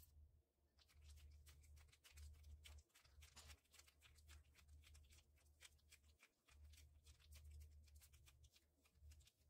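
Near silence, with faint crinkling and ticking as disposable plastic gloves rub against soft bulgur kibbeh dough while it is hollowed into a shell, over a low hum.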